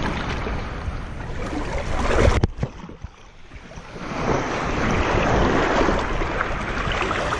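Shallow surf water washing and splashing, with wind on the microphone; a hooked snook thrashes and splashes in the shallows at the start. The wash drops away briefly about two and a half seconds in and then returns steadily.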